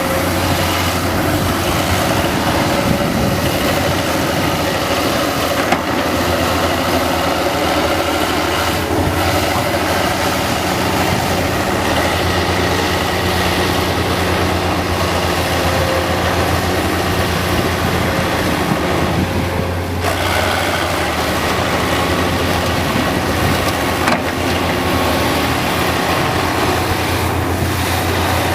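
Excavator's diesel engine running steadily, a constant low drone with a few brief knocks.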